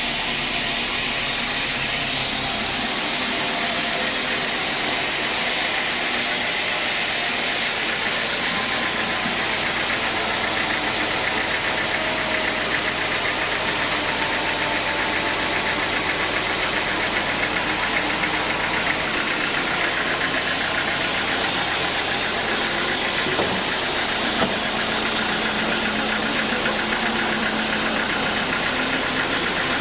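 Sawmill machinery running steadily with dense, even mechanical noise and a fast, regular rattle.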